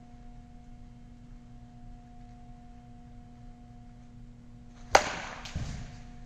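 A wooden baseball bat strikes a ball off a batting tee with one sharp crack about five seconds in, followed about half a second later by a duller, lower thump. A steady faint hum runs underneath.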